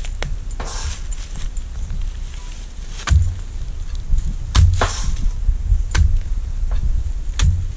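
Long-handled digging blade being driven into dry, mulch-covered soil, giving about eight dull thuds with some scraping at uneven intervals, while digging out yams. The heaviest strikes fall a little after three seconds and around four and a half to five seconds.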